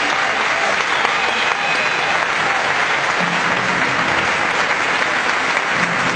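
Arena crowd applauding steadily.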